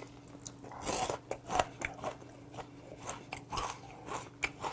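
Close-up chewing and biting of boiled monkfish, with irregular wet smacks and small crunches from its soft cartilage bone.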